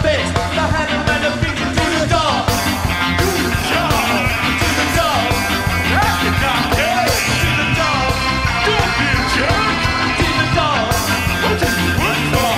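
Ska band playing live through a PA: a driving beat of drums, bass, guitar and keyboards, with a male lead singer's vocal over it.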